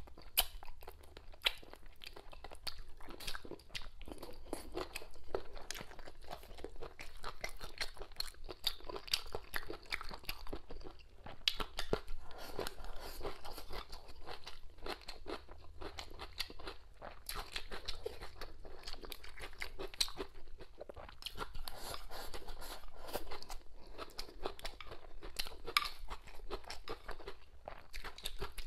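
A woman biting and chewing mouthfuls of braised pork belly close to a clip-on microphone: a steady run of small crunching clicks.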